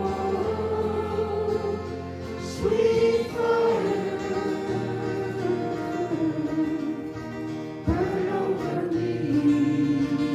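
Worship music: a group singing together over sustained chords, with the chords shifting about three seconds in and again near the end.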